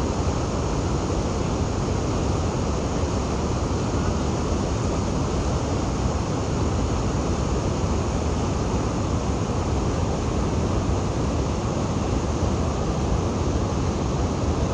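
Steady rushing of the Niagara River's whitewater rapids and cascades: an even, unbroken water noise, strongest in the low range.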